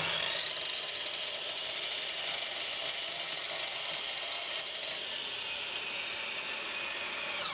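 Electric chop saw running with its blade spinning, brought down several times to make partial cuts into a small wooden piece. Near the end the motor is switched off and its whine falls away as the blade spins down.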